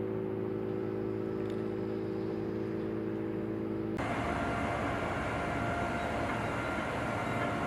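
Steady hum of industrial plant machinery, holding several even tones. About four seconds in it switches abruptly to a rougher, noisier steady machinery din.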